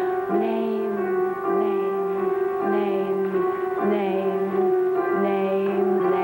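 Music: long held notes in several voices over a low note that restarts in even phrases, about five times, a little over once a second.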